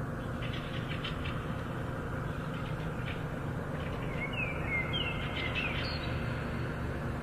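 Wild birds calling in woodland: a few short chirps, then a run of whistled notes sliding up and down about four to six seconds in, over a steady low background rumble.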